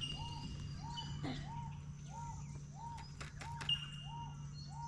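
Birdsong: a short rising-and-falling note repeated about twice a second, over thin, high, steady whistled notes.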